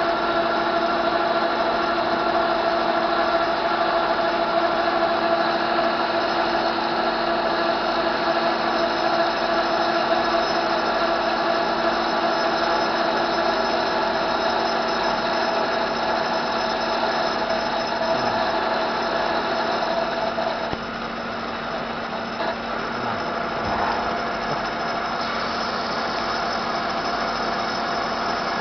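Citizen Cincom E32 sliding-headstock CNC automatic lathe running, cutting a bar with coolant flooding the work: a steady machine whine of several tones over a hiss. About 21 seconds in the sound drops a little and one of the tones stops.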